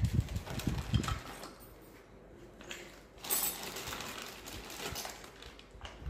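Clear plastic bag crinkling as it is handled and opened, with scattered light clicks of small steel toy dishes. A few low thumps come in the first second.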